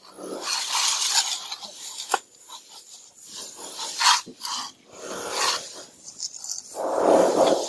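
Mason's trowel scraping and spreading mortar on a wall in a series of irregular rasping strokes, with a louder, fuller sound near the end.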